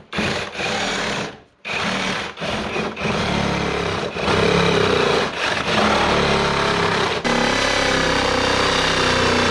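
Handheld power tool cutting through the plastic body of a ride-on toy, running steadily with a brief stop about a second and a half in before it resumes.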